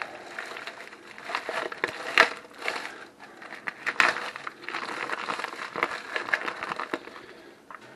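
Plastic corned beef packaging crinkling and crackling as hands work at it with a knife too dull to cut it easily, with two sharper snaps about two and four seconds in.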